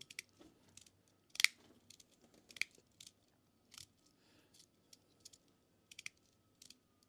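Magnetic fidget slider being played with: its separate plates snap together in sharp, irregular clicks, about a dozen, the loudest about a second and a half in.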